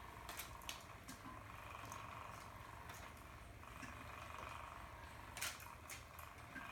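Petzone Flyby Spinner cat toy's small battery motor running with a faint, steady whine that grows stronger about halfway through. A few light clicks and taps sound over it, the sharpest a little over five seconds in.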